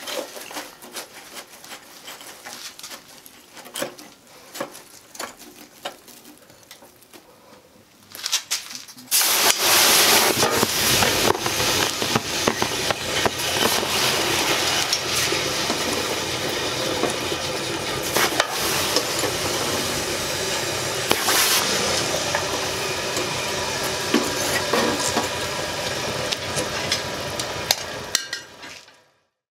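Charcoal forge fire: light crackling and ticking at first, then about nine seconds in a loud steady rushing hiss sets in as the fire is blown hard, with crackles and popping sparks throughout. It fades out near the end.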